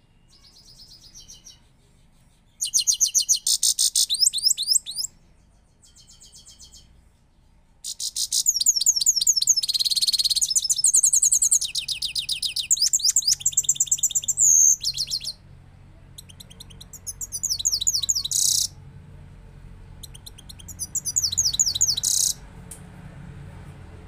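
Caged grey-crowned goldfinch singing: phrases of rapid, high twittering trills, with short pauses between them and one long unbroken run of about seven seconds in the middle.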